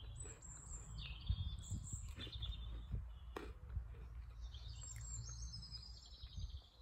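Small birds chirping and singing in repeated short, high notes, over a steady low background rumble.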